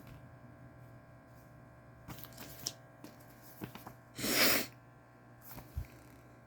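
Quiet handling of a Blu-ray case and its paper inserts: scattered soft clicks and rustles, with one louder short hissing burst about four seconds in, over a faint steady hum.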